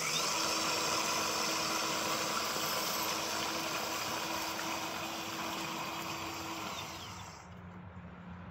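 A ballast regulator being pushed along miniature-railway track, running with a steady hum over a broad rushing noise. The sound drops away about seven seconds in.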